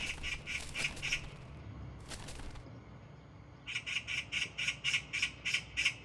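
Oriental magpie chattering: two runs of harsh, rapid calls at about five a second, a short run at the start and a longer one in the second half.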